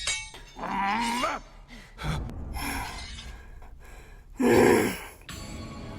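Wordless vocal gasps: a short pitched gasp about a second in, then a loud, sharp gasp of breath near the end.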